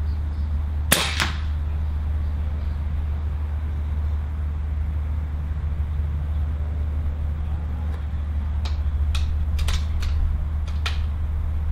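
A single shot from a Cometa Orion bullpup PCP air rifle in .22 (5.5 mm): one sharp crack about a second in, with a second crack a quarter-second after it. Near the end comes a quick run of about six metallic clicks as the rifle's action is worked, over a steady low rumble.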